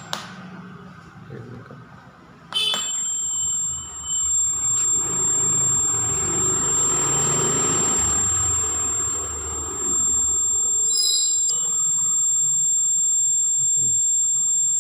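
Buzzer of a home-made fire alarm model: a steady, piercing high-pitched tone. It cuts off with a click at the start and comes back on with another click about three seconds in, then sounds continuously. A rushing noise rises and falls underneath it through the middle.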